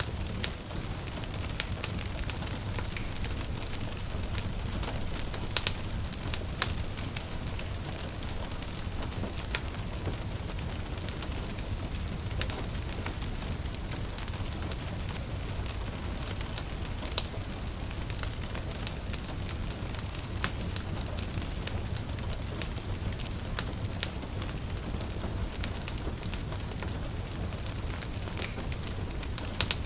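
Wood fire crackling, with irregular sharp pops scattered throughout, over the steady hiss of gentle rain and a low rumble beneath.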